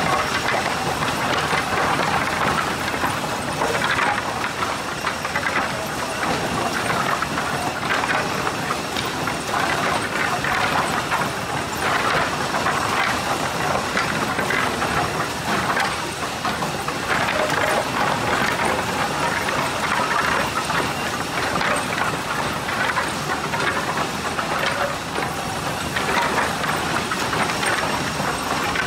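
Steady din of a sawmill resaw line: the high-speed center split resaw and its belt conveyors running continuously, with frequent clatter of split pine boards knocking against each other and the conveyor.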